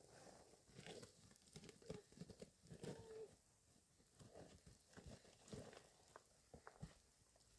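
Near silence: faint scattered rustles and clicks, with a brief faint tone about three seconds in.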